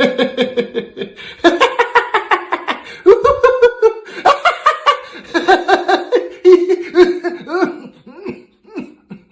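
Human laughter: rapid, loud ha-ha-ha pulses in several bouts that trail off into a few last breaths near the end.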